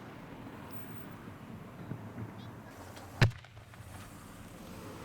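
A single sharp firework bang a little after three seconds in, over low steady background noise.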